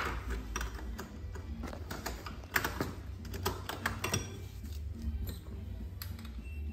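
Irregular clicks, clinks and light knocks of hand tools and metal parts as a motorcycle's seized starter pinion gear is replaced, over a low steady hum.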